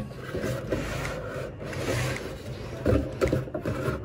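Products and packaging being handled and shifted inside a cardboard box: rustling and scraping, with a knock about three seconds in.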